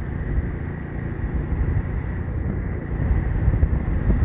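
Wind buffeting the microphone over the low rumble of a moving vehicle's engine and tyres on the road, steady and unbroken.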